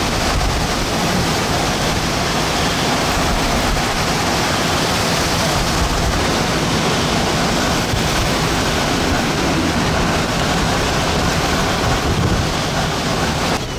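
Major hurricane winds making a loud, steady rush of noise and buffeting the microphone; the sound drops off abruptly near the end.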